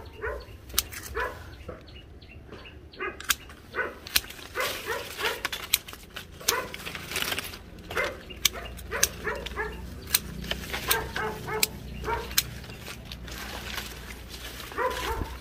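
A dog barking again and again in short calls, mixed with sharp clicks of pruning shears snipping branches.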